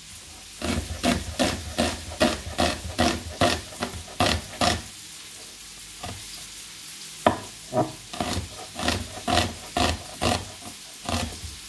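Knife chopping an onion on a cutting board: runs of quick knocks, about three a second, with a pause in the middle.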